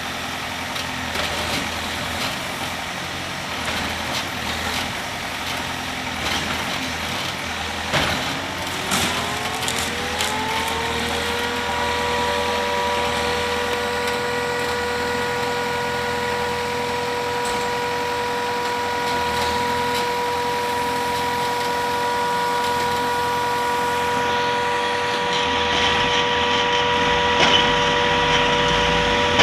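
Backhoe loader's diesel engine running under load with scattered knocks. About nine seconds in, a whine rises in pitch over a couple of seconds and then holds steady at a high pitch.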